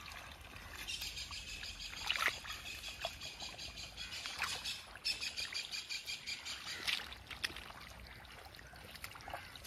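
Shallow muddy paddy-field water splashing and sloshing as hands stir and grope through it for snakehead fish, with several sharper splashes. Birds chirp in the background.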